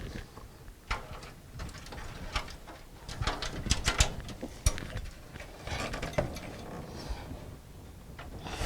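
Scattered clicks, light knocks and rattles of hands working on computer case parts and a motherboard tray, thickest from about three to five seconds in.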